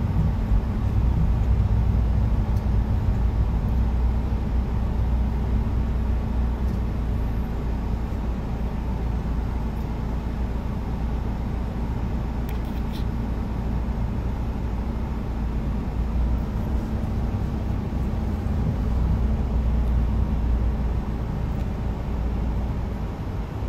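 Steady low rumble of a passenger van's engine and running noise, heard from inside the cabin.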